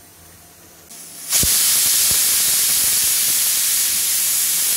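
Prestige Deluxe pressure cooker venting steam under pressure: a loud, steady hiss that starts suddenly with a thump about a second in and holds until it cuts off near the end.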